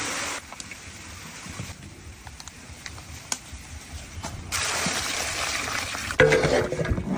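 Liquid being poured, an even hiss lasting about a second and a half, with a few light clicks before it and a louder clatter near the end.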